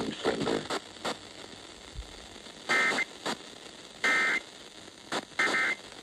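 Emergency Alert System end-of-message data bursts heard through a SPARC portable radio's speaker: three short bursts of buzzing digital tones, about 1.3 s apart, over steady FM hiss. They signal the end of the alert broadcast.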